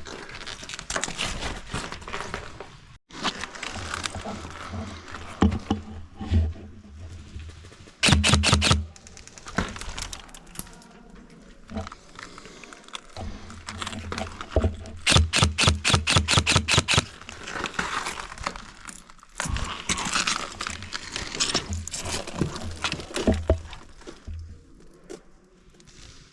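Airsoft guns firing rapid bursts of about ten shots a second: a short burst about eight seconds in and a longer one of about two seconds around the middle, with scattered cracks and rustling between.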